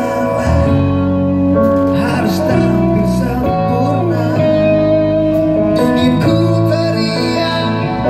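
Live rock band playing: electric guitar and bass chords over drums, with a male singer on the microphone.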